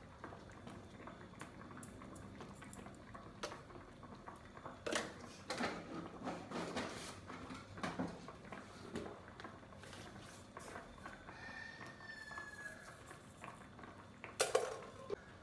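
A wok of milkfish in sauce simmering quietly on a gas stove, with scattered clinks and knocks of utensils and dishes. The clinks bunch together in the middle, and there is a louder knock near the end as a spoon comes to the wok.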